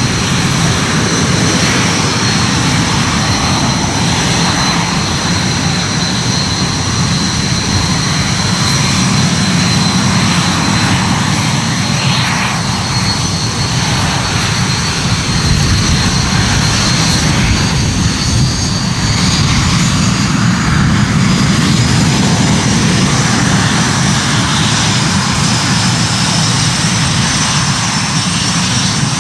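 Aircraft engines running, a steady loud drone with a constant high whine over it.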